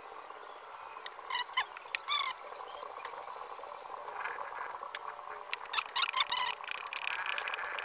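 A spoon clinking and scraping in a bowl as the banana-heart salad is stirred, in a quick run of clicks lasting a second or two about six seconds in. Earlier, about one and two seconds in, two short animal calls falling in pitch.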